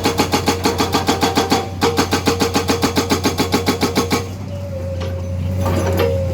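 Excavator-mounted hydraulic breaker hammer pounding in a fast, even rhythm of about eight blows a second, with a brief break after about a second and a half. The hammering stops a little over four seconds in, leaving the excavator's engine running.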